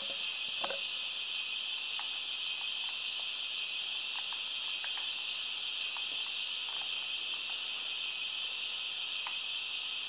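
Sanding sound effect from a Jouef CC 70002 model diesel locomotive's sound decoder: a steady hiss of air blowing sand onto the rails, played through the model's small speaker.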